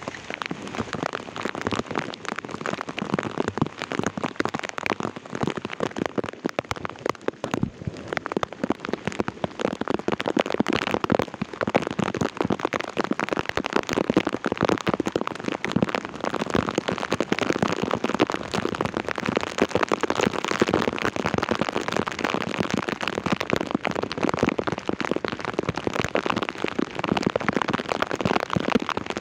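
Heavy rain pelting down in a dense crackle of drops striking a surface, growing heavier about a quarter of the way in.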